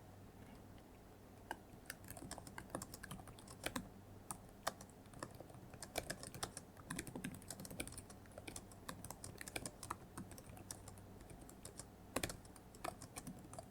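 Typing on a computer keyboard: quick, irregular key clicks that begin about a second and a half in and run on, with a few sharper key strikes among them.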